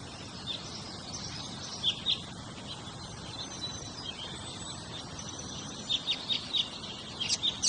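Birds chirping and calling over steady outdoor background noise, short high chirps scattered through and coming in a quick run near the end.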